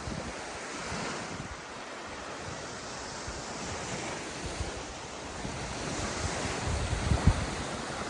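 Small sea waves washing onto a sandy shore, a steady surf hiss that swells and eases, with wind buffeting the microphone in low rumbles and a brief thump near the end.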